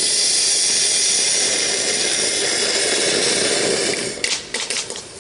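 Firework fountain spraying sparks with a loud, steady hiss, which breaks into rapid crackling about four seconds in.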